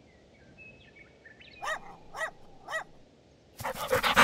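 A dog barks three short times, then starts panting rapidly and loudly near the end.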